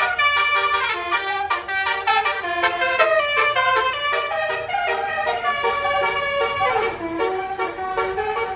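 Basuri multi-tone musical horn (telolet) playing a rapid melody of stepped notes, with a sliding drop in pitch about seven seconds in.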